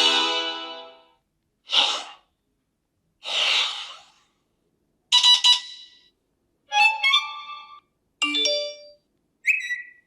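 The tail of a long sustained tone, then a run of short iPhone alert sounds about a second apart with silence between them. There are two soft whooshes, then bright chimes, a quick rising run of notes, and a short tone near the end.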